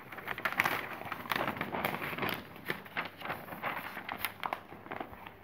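A large sheet of paper rustling and crackling as it is handled and turned over, with many short irregular crinkles.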